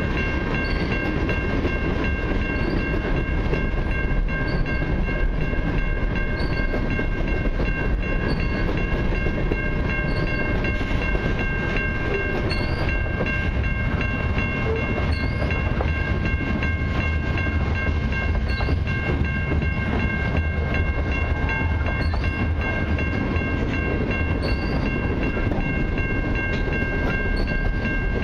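Freight train cars, tank cars and covered hoppers, rolling past: a steady rumble of steel wheels on the rails, with steady high-pitched ringing tones over it.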